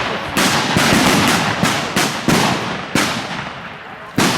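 Rifle shots from several shooters on a 300m firing line, about nine sharp reports at irregular spacing, some close together. Each shot trails off in a long echo.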